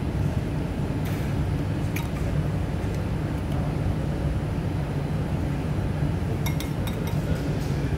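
Metal cutlery clinking against a ceramic plate: single clinks about a second and two seconds in, then a quick cluster near the end. Under it is a steady low hum.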